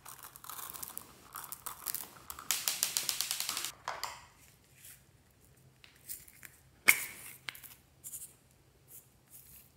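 Small plastic beads rattling out of a plastic container onto slime in a glass dish, a rapid dense patter lasting about a second, then one sharp plastic click and a few faint taps.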